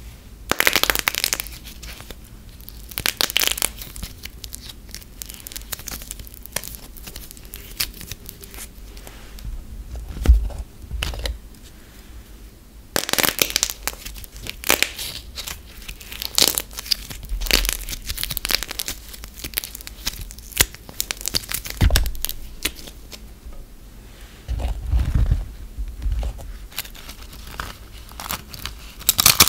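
Gold foil wrapper on a soap ball being crinkled and torn as it is peeled off by hand, in irregular bursts with quieter rustling between.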